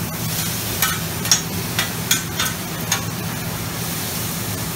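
Metal spatulas scraping and clacking on a flat-top griddle as beef and vegetables are tossed and stirred, over a light sizzle. A run of sharp scrapes comes in the first three seconds, then fewer, with a steady low hum underneath.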